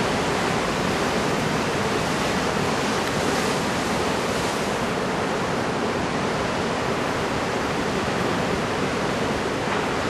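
Steady, unbroken rush of large typhoon surf breaking offshore.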